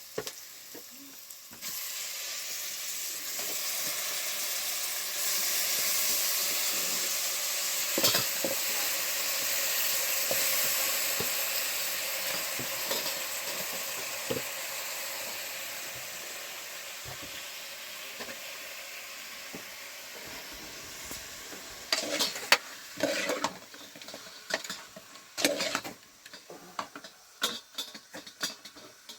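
Food sizzling in a hot pan: a steady hiss that builds over the first few seconds and slowly fades. It is followed near the end by scattered clinks and scrapes of utensils against the pan.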